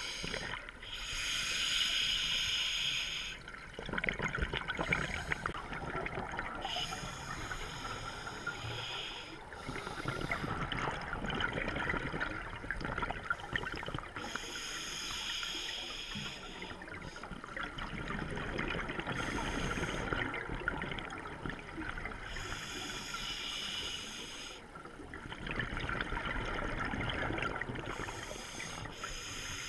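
Scuba diver breathing through a regulator underwater: a hissing inhalation about every six to seven seconds, five in all, with bubbling exhalation in between.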